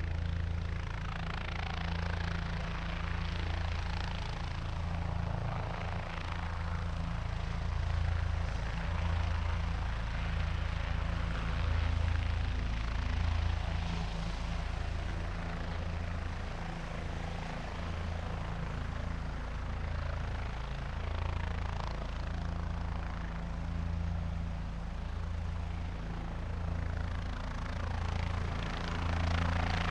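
Helicopter running steadily on the ground or in a hover, with a low pulsing rotor beat under a rushing turbine hiss; the sound swells right at the end.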